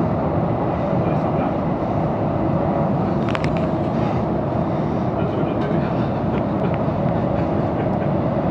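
Steady rumble of a moving commuter train heard from inside the carriage, with wheels running on the rails. A couple of brief sharp clicks come a little over three seconds in.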